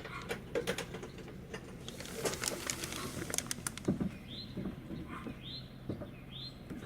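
Scattered light clicks and knocks from handling, then a small bird chirping four times, about once a second, each chirp a short upward sweep.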